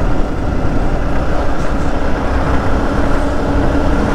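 Yamaha R15 single-cylinder motorcycle under way at steady low speed: even engine drone mixed with low wind rumble on the microphone.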